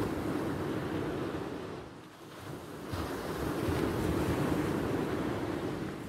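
Sea surf washing onto the shore, a rush of water that swells, eases about two seconds in and swells again from about three seconds, with wind rumbling on the microphone.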